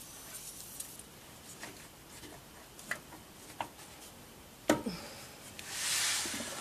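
Hands working at a car's rubber exhaust mount: a few light clicks and taps, one sharp knock about four and a half seconds in, and a short hiss near the end.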